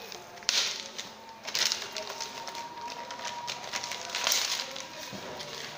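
Pink anti-static plastic bag rustling and crinkling as a laptop is slid out of it, with louder swishes about half a second, a second and a half, and four seconds in.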